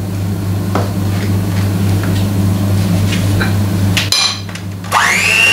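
Electric hand mixer beating cake batter in a plastic bowl, its motor humming steadily while the beaters knock against the bowl. About four seconds in there is a clatter and the motor briefly stops, then it starts again with a rising whine that settles at a high pitch.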